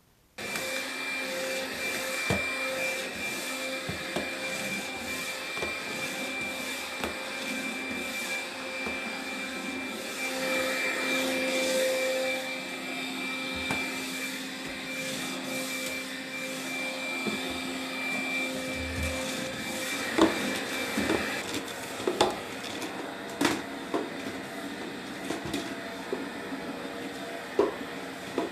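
Household vacuum cleaner running steadily with a whine. About two-thirds of the way through, the whine drops away and scattered knocks and clatter come through over the running noise.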